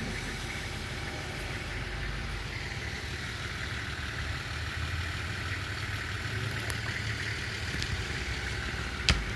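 Steady low mechanical hum, with a sharp knock near the end.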